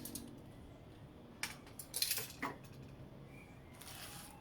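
Small metal parts being handled: a few light clinks about a second and a half and two seconds in, then a soft rustle near the end.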